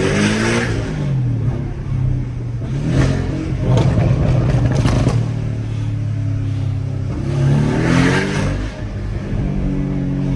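Porsche 718 Cayman engine with a Stage 2 remap and stainless exhaust, accelerating hard three times with the pitch rising through the revs. A run of crackles comes around the middle, from the pops-and-bangs tune firing off-throttle.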